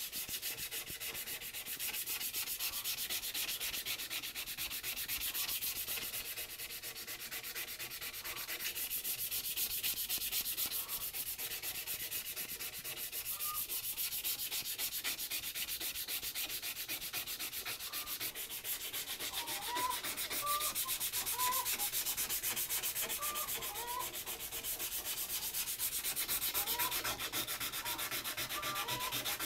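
Sandpaper rubbed by hand in rapid back-and-forth strokes over the steel head of a hewing axe, a steady scratchy hiss. The sanding takes off rust and old surface that a scotch pad would not shift, working down toward bare metal.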